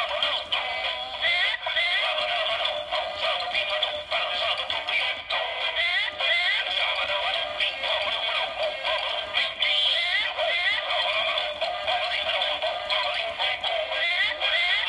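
Gemmy Monster Maniacs 'Mort' animated plush toy playing its built-in novelty song through its small speaker: an electronic tune with a cartoonish synthesized singing voice, thin and tinny with no bass.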